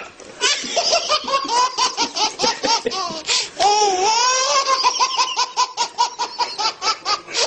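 A baby laughing hard: rapid, high-pitched bursts of belly laughter, with one longer drawn-out laugh a little past halfway.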